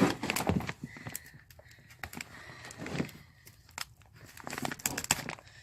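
A bag of horse feed being gripped and handled: scattered rustles, crinkles and small clicks of the bag's material, busier near the start and again near the end.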